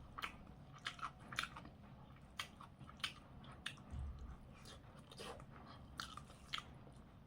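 Close-miked chewing: irregular wet mouth clicks and smacks as food is chewed, with a brief low bump about four seconds in.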